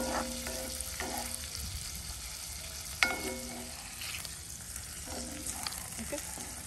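Langoustines frying in bubbling butter and garlic in a cast-iron pan: a steady sizzle, with a wooden spatula knocking and scraping against the pan a few times, the sharpest knock about three seconds in.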